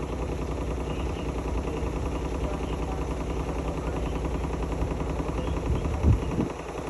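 Hotpoint-Ariston Aqualtis AQXGF 149 S washing machine running, a steady fast rattle with a low rumble, and one louder thump about six seconds in.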